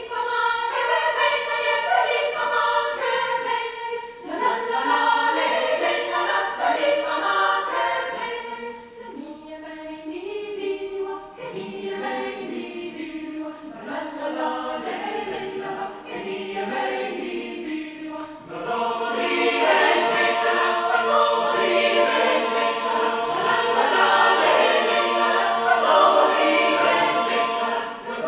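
Mixed choir of men's and women's voices singing a Resian folk-song arrangement unaccompanied. The singing starts all together, grows softer for a stretch in the middle, and swells fuller and louder for the last third.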